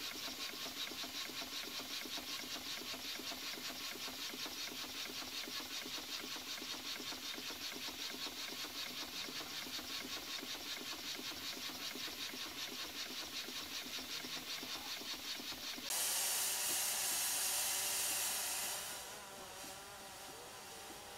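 Steam traction engine running with a fast, even beat of its exhaust and moving parts. About 16 seconds in, a loud hiss of escaping steam starts and drops after about three seconds to a softer, steady hiss.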